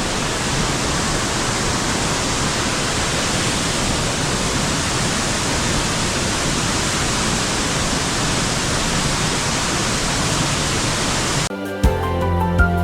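Steady rushing noise of a waterfall. Near the end it cuts off abruptly and background music starts.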